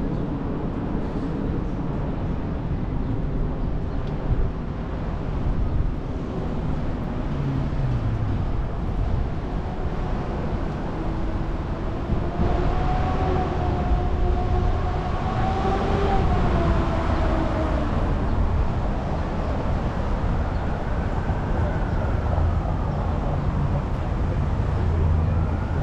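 Steady city traffic and road noise heard from a moving bicycle. About halfway through, a passing vehicle adds a whine that rises and falls, followed by a fainter one a few seconds later.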